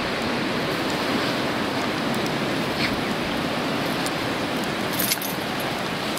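Steady rushing outdoor noise, with a few brief metallic jingles about three and five seconds in, typical of a dog's collar tags as the dog moves.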